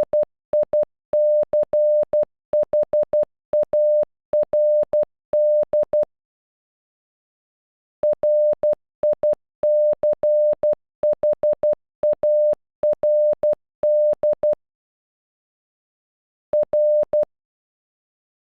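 Morse code beeps of a single steady-pitched electronic tone, sending the name "Richard" (.-. .. -.-. .... .- .-. -..) in short dots and longer dashes. The word is sent twice with a pause of about two seconds between, and after another pause a short group of beeps sounds near the end.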